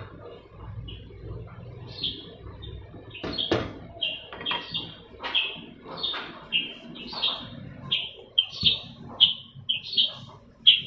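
A small bird chirping over and over, short high chirps about twice a second, with a few sharp knocks about three seconds in.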